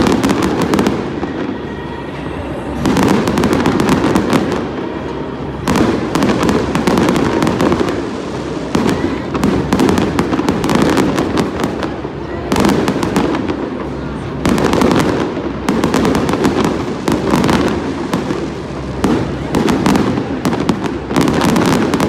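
Aerial fireworks display: shells bursting in dense volleys of bangs and crackles, coming in waves every two to three seconds with short lulls between.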